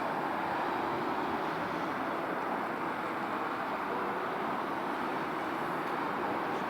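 Steady rush of cars driving past, engines and tyres blending into one continuous noise.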